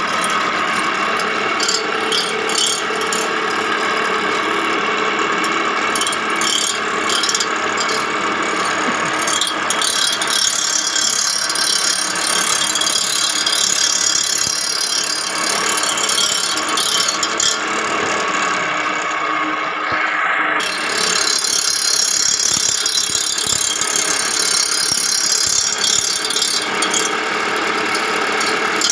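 Reel grinder grinding a greens mower's cutting cylinder: the reel spins against the grinding wheel with a steady grinding hiss and rapid metallic clicking. The hiss drops away for a moment about two-thirds through.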